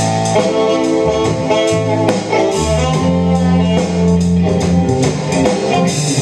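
A small band playing live: a drum kit with cymbal strokes under a bass line and held notes from pitched instruments.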